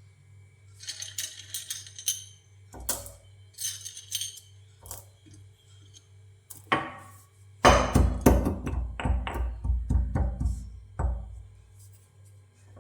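Small hard grains rattling in two short spells, then a rapid run of heavy knocks for about three and a half seconds, roughly four a second.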